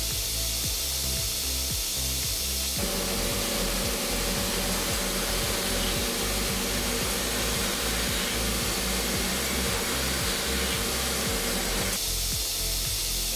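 Background music with a steady beat over the hiss of a machining centre's spindle turning a carbide twist drill at about 3,200 rpm. A few seconds in, a fuller cutting noise with a steady tone joins as the drill bores into carbon steel, and it falls away again about a second before the end.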